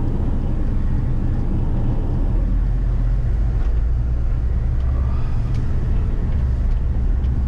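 Suzuki car driving, a steady low engine and road rumble heard from inside the cabin.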